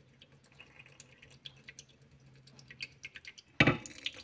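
Water dripping into a 3D-printed plastic double-ended tipping bucket, faint scattered drips. About three and a half seconds in, the filled bucket tips over with a sudden knock and its water spills out, and the dripping and splashing grow louder.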